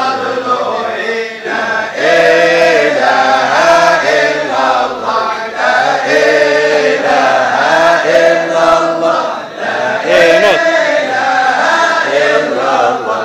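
A group of men chanting dhikr together in long held phrases that rise and fall, with short breaks for breath between them.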